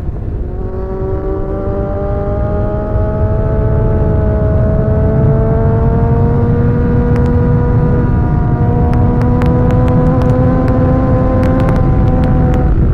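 Sport motorcycle engine running at highway speed, heard from on board with heavy wind rumble on the microphone. The engine note dips at the start, then climbs slowly under steady throttle and levels off in the second half.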